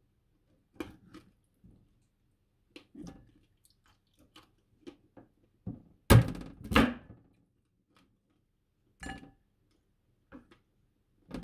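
Knife cutting through oven-roasted pork belly with crackling skin on a wooden board: scattered crunches and knocks of the blade on the board, the loudest about six seconds in.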